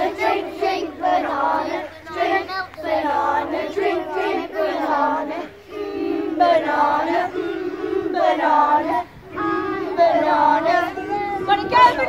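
A group of young children singing a campfire action song together in short phrases, about one a second.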